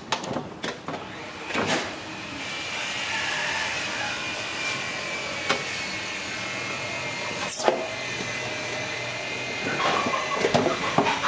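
A steady machine-like whirring noise with a faint high whine sets in about two seconds in and holds until near the end. Short knocks and splashes come at the start, once in the middle and again near the end.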